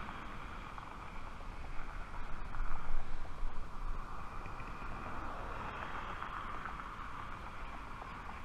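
A car passing on the road alongside, its noise swelling about three seconds in and then fading, over steady wind noise on the microphone.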